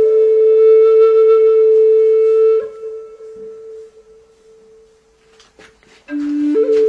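Background flute music: one long held note that breaks off about two and a half seconds in. A few seconds of quiet with faint clicks follow, and the flute starts again near the end with a low note stepping up to a higher one.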